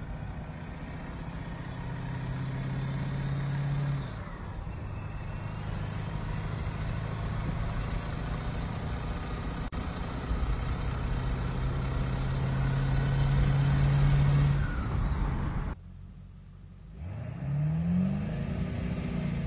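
A 7.3L Powerstroke diesel pickup accelerating on the road, heard from inside the cab. The engine drone grows louder over several seconds. After a break, the engine note rises and falls once near the end.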